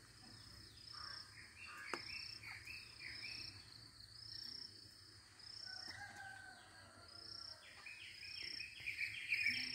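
Wild chicken calling in short, quick repeated notes among other birdsong, with a high call repeating about once a second. The loudest run of rapid notes comes near the end.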